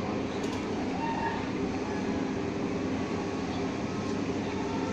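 Large flock of chickens in a pen making a dense, steady din of clucking, with short higher calls standing out now and then.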